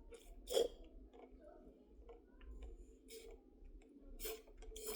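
Faint mouth noises and scattered small clicks, with a sharper sound about half a second in, from a person eating and sipping a drink through a straw close to the microphone.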